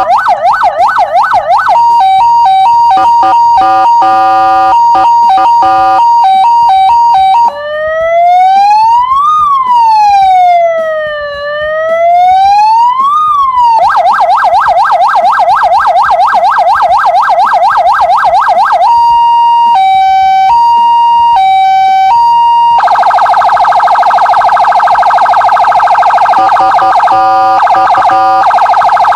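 CJB 200 W electronic siren sounding loudly through its siren speaker, switching between tones. It runs a fast yelp, then a high-low two-tone, then a slow wail that rises and falls twice, then the fast yelp again. After that comes a slower two-tone, a rapid warble about three quarters of the way in, and the two-tone once more near the end.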